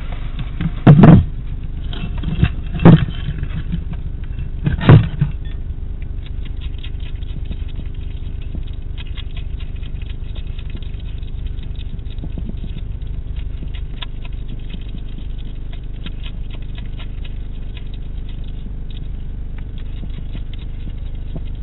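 European hedgehog feeding at a dish: a long run of small, quick clicking chews over a steady low hum. Near the start come three loud knocks about two seconds apart.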